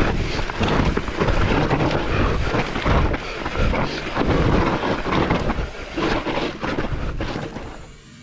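Mountain bike descending a rough trail at speed: a steady rush of wind on the microphone over the rattle and knocks of tyres and bike on rocks and roots. It drops away sharply near the end.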